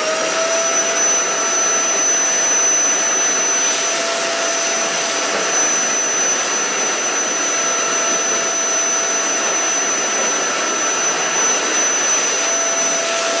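Vacuum cleaner running steadily with a steady whine, sucking up broken windshield glass from the empty windshield frame.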